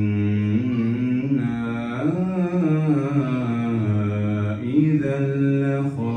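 A man's voice reciting the Quran in a melodic tajweed chant. He holds long, ornamented notes whose pitch rises and falls, with a brief break near the end.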